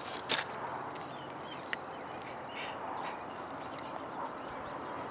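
Outdoor summer ambience: a steady high-pitched insect drone, with a few brief chirps in the middle and a couple of sharp clicks in the first two seconds.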